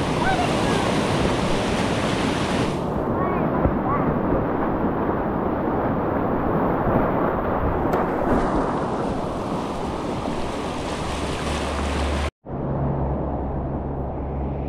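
Rushing whitewater: the steady, loud noise of river rapids. The sound cuts out for an instant about twelve seconds in and comes back duller.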